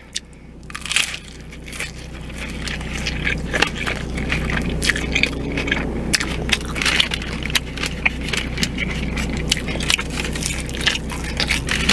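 Close-miked chewing of a crunchy Doritos Locos taco shell: dense crackling crunches that build up over the first couple of seconds and then carry on steadily.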